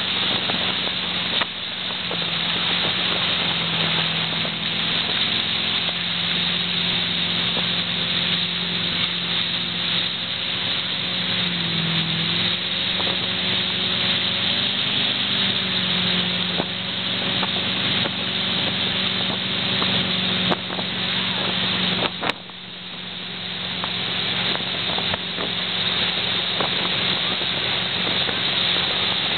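Motorboat engine running steadily under way while towing a water skier, mixed with the rush of wind and water. Its note wavers briefly about twelve seconds in and again a few seconds later, and a sharp click comes about two-thirds of the way through.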